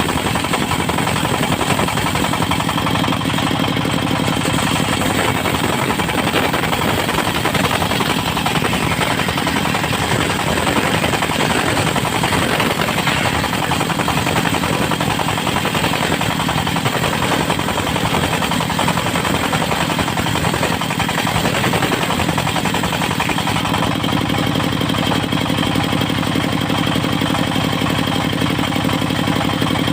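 Engine of a portable circular sawmill running steadily under power, with a rapid chugging beat; its low note settles into a smoother, steadier hum about 24 seconds in.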